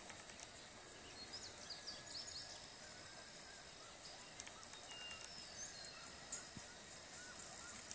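Outdoor field ambience: scattered bird chirps over a steady high-pitched drone.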